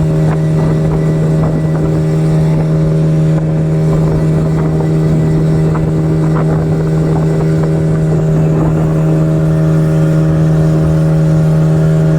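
Speedboat engine running steadily at speed, its drone holding one even pitch, over rushing water and wind noise.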